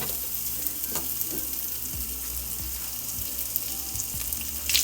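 Butterflied sausage sizzling in a frying pan, a steady hiss with fine crackles that grows louder near the end.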